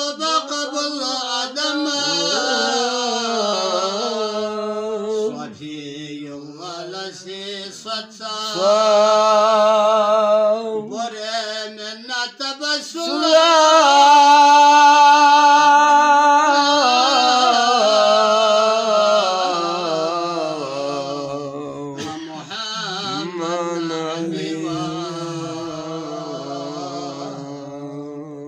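A man singing a qasida unaccompanied, a slow devotional chant with long, ornamented held notes and short breaths between phrases. It is loudest on a high held note about halfway through.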